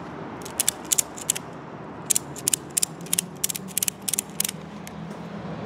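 Ratchet tie-down strap being ratcheted tight: the ratchet's pawl gives sharp clicks in several short runs as the handle is worked, winding the strap onto the slotted spool.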